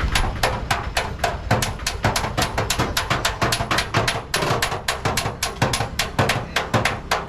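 Rapid, irregular hammer blows on scrap metal, several strikes a second, over a low background rumble.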